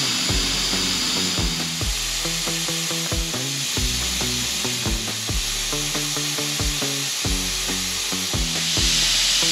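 Air hissing steadily out of a pickup truck tire's valve stem as a valve tool presses the core, deflating the tire to trigger the TPMS sensor relearn; the hiss grows louder near the end. Background music with a steady beat plays under it.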